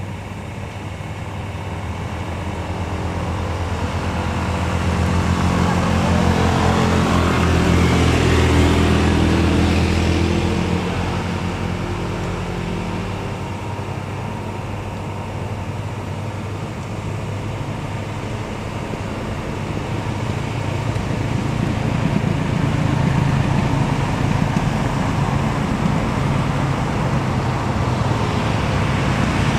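Diesel engine of a loaded Hino three-axle truck labouring up a steep climb, its deep running note swelling about a third of the way in, easing, then building again near the end.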